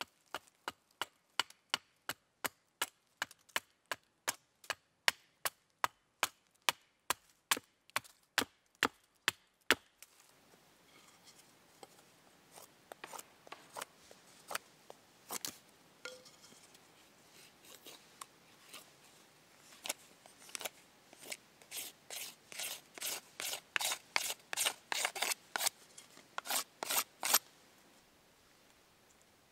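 A hatchet knocking into a stick of wood on a chopping block, about two sharp strikes a second, splitting it. After about ten seconds it gives way to a knife shaving and scraping along the split wooden stick, in irregular strokes that come thick and fast for a few seconds near the end.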